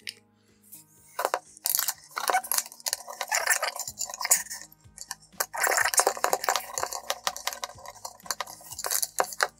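Rapid, irregular metallic clicking and clinking of a hand tool and steel parts as the long bolt holding an electric scooter's front suspension fork is undone with a 10 mm socket on a long extension.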